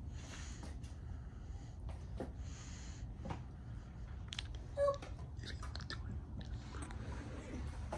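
Axe head stuck in a log being wrenched at: faint scrapes, creaks and light knocks of steel and wood, with a short squeak nearly five seconds in, over a low steady hum.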